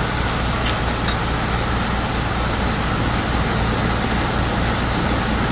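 Drilling rig machinery running steadily while spudding in a well, the drill pipe turning in the hole: a loud, even mechanical noise over a low regular throb, with one sharp click a little under a second in.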